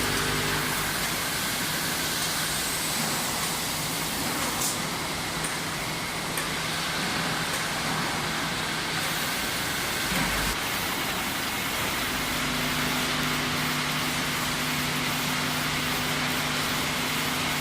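Bottle labelling machine running: steady mechanical noise with a low hum that fades after the first second and comes back about twelve seconds in.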